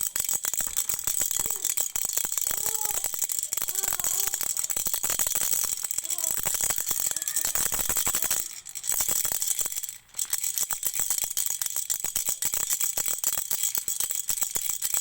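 A toy rattle shaken rapidly and continuously, a dense rattling of many small clicks, broken by brief pauses about eight and a half and ten seconds in.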